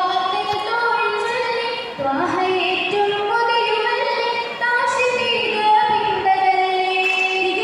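Live singing of a Mappila song for an Oppana dance by a group of schoolgirls into stage microphones, a melody of drawn-out notes that slide between pitches.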